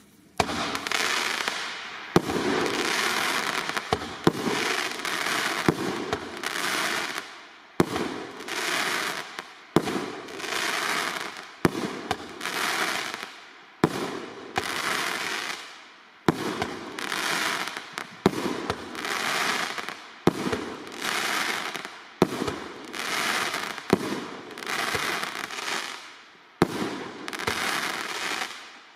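A 19-shot consumer firework cake firing: a sharp shot about every two seconds, each followed by a rush of noise from the burst that fades away before the next shot.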